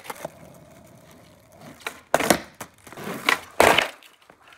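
Skateboard deck and wheels clacking hard on a concrete driveway during a kickflip attempt, a run of loud knocks in the second half as the board is popped and lands.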